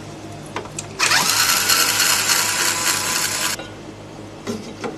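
A small handheld power tool runs for about two and a half seconds, spinning up at the start and cutting off sharply, with a few light clicks before and after.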